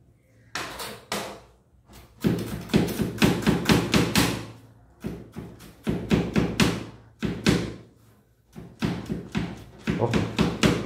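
Chef's knife chopping red onion on a plastic cutting board: quick runs of sharp knocks as the blade strikes the board, several a second, with short pauses between the runs.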